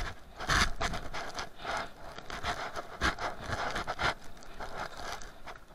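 Scraping and rustling handling noise: mesh fabric rubbing against the camera and its microphone in irregular bursts.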